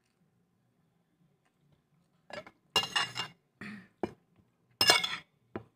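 A spoon clinking and knocking against ceramic plates: a handful of short clinks in the second half, the two loudest ringing briefly.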